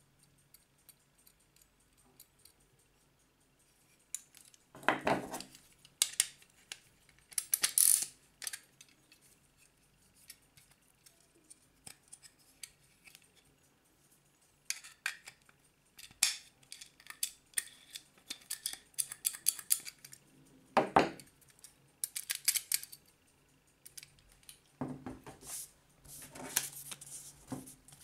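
Metal clicks and clinks of a Soviet ship's clock movement being handled and turned over. The sounds come in irregular clusters, beginning about four seconds in.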